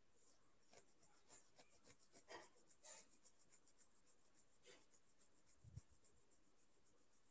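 Near silence: faint scratching and rustling strokes, with a soft low thump about six seconds in.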